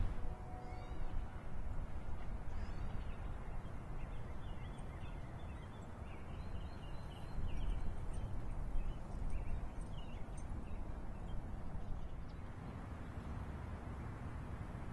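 Park ambience: a low rumble of wind on the microphone, with faint, scattered bird chirps in the first half.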